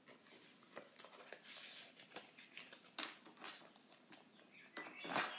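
Polymer banknotes handled and counted by hand: faint crinkles and flicks, with a louder rustle near the end.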